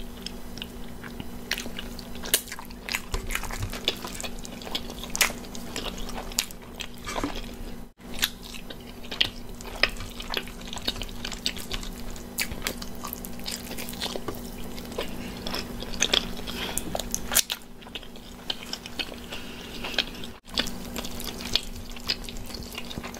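Close-miked chewing and biting as a person eats a slice of cauliflower-crust pizza: irregular soft crunches and wet mouth clicks.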